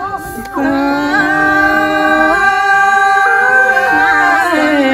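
Group of women and a man singing a farewell song together. After a short break near the start they draw out one long held note, bending the pitch slightly at its ends.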